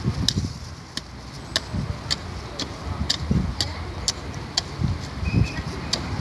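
Small hand hoe chopping into red soil around a mango seedling: sharp ticks about twice a second, with dull low thuds of earth in between.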